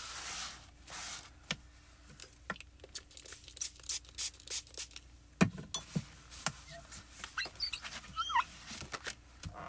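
A paper towel rubs and blots across a wet plastic stencil briefly at the start. Scattered clicks and taps follow as the stencil and supplies are handled on the craft mat, with a louder tap about five and a half seconds in and a short squeak near the end as the stencil is lifted.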